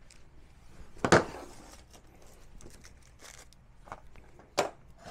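Small objects being handled and set down on a wooden workbench: a sharp knock about a second in, another near the end, with light clicks and rustling between.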